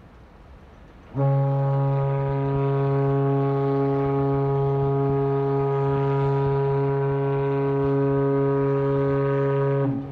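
A container ship's horn sounding one long, steady, deep blast of about eight seconds, starting about a second in and cutting off near the end.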